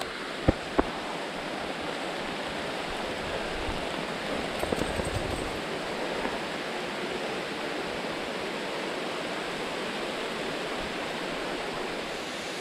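Steady downpour of rain hissing on the forest leaves and undergrowth. A couple of sharp clicks come about half a second in, with a few faint ticks around five seconds.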